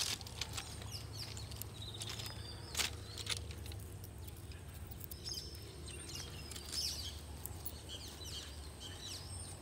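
Birds chirping on and off over a faint, steady low hum, with a couple of sharp clicks about three seconds in.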